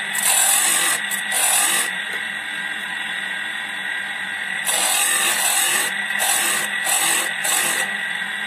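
Washing-machine motor of a homemade chainsaw-chain sharpening grinder, running with a steady hum and whine, broken by several short, loud scraping hisses near the start and again from about five seconds in.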